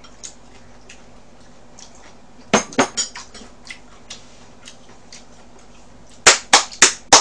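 Chopsticks clicking and scraping against a pan and bowls: scattered light clicks, a cluster of sharper knocks about two and a half seconds in, and four loud sharp clicks near the end.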